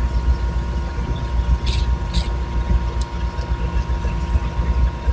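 Steady low rumble with a faint hum behind it, and a few small scrapes and light ticks in the first half: a tiny Phillips screwdriver working the small screws out of a knife's frame.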